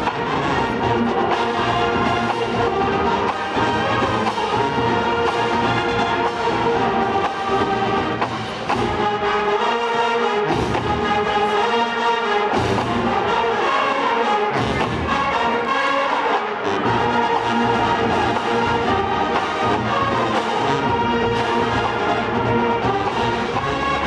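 Marching band playing a Motown medley: full brass with sousaphones and drums, the bass line dropping out for a few short moments near the middle.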